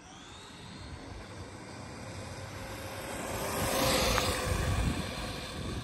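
Arrma Gorgon 2WD RC monster truck on a speed run, its stock brushed electric motor and tyres growing louder to a peak about four seconds in, then fading as it goes past.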